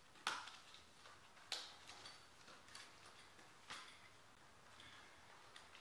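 A few sharp plastic clicks and light ticks as a plastic Allen key case is opened and the keys are handled, three louder clicks spread out with fainter ones between, over near silence.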